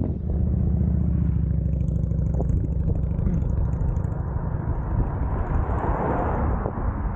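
A car drives past, its tyre and road noise swelling to a peak about six seconds in and then fading, over a steady low rumble.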